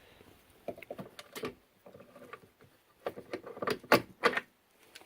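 Metal clicks and clunks of a Craftsman 109 lathe's tailstock being worked loose with its spring-loaded quick-release clamp, a few light knocks at first, then a cluster of louder knocks between about three and four and a half seconds in.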